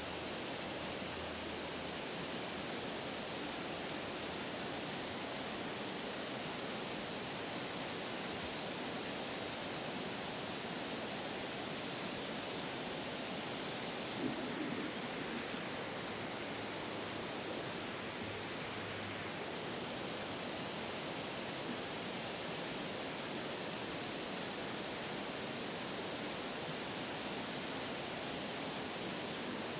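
River water rushing steadily around the wading angler, an even hiss that does not change, with a brief soft knock about halfway through.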